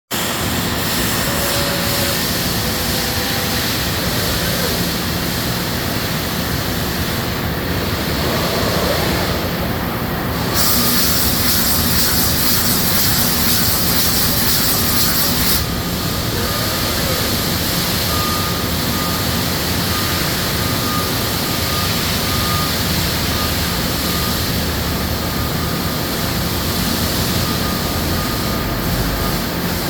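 CNC machine tools and a tending robot running, a steady mechanical din with a faint whine. About ten seconds in, a loud hiss starts and runs for about five seconds.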